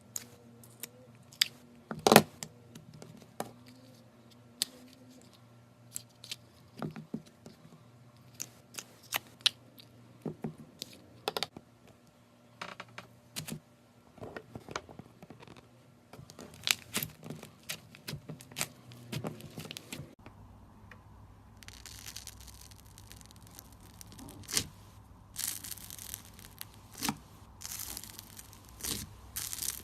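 Slime being squeezed and stretched by hand, giving scattered sharp pops and crackles. About two-thirds of the way through the background changes and the crackling becomes denser.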